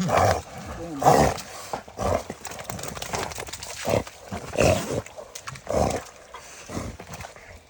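Hog-hunting dogs barking, about six short barks spaced irregularly.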